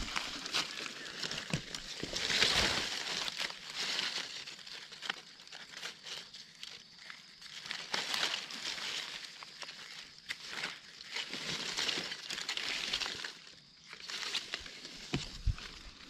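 Dry leaf litter rustling and crackling in irregular crunches, as someone moves through it and handles it on the forest floor.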